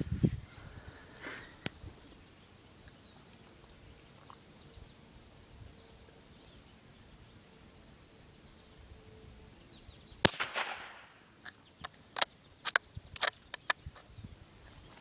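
.22 bolt-action rifle firing a single shot about ten seconds in, with a short echo after it, followed by a quick run of sharp clicks. A low thump and a couple of clicks come near the start, and faint bird chirps sound in between.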